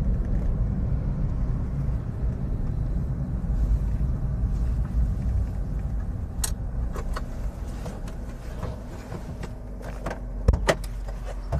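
Car cabin noise: the low, steady rumble of a car driving, gradually quieter as the car slows, with a few sharp clicks near the end.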